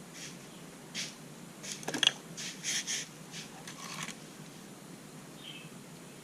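Handling noises: a handful of short clicks and scrapes, the loudest about two seconds in, over faint room noise.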